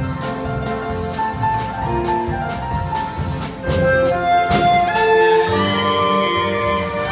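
Klezmer band playing a wedding medley: a melody over a steady percussion beat of about two strokes a second. About five seconds in, the beat stops and the band moves into long held notes.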